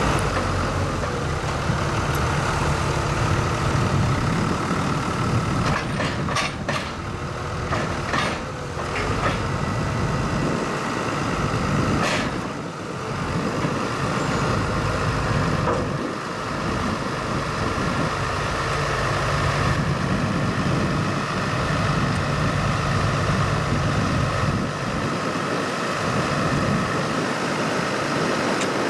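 JCB Fastrac 3220 tractor's diesel engine running steadily, with a few sharp knocks between about six and twelve seconds in.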